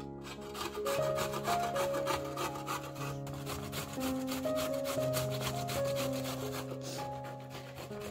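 An onion being grated on a stainless steel box grater: quick repeated grating strokes, with piano music underneath.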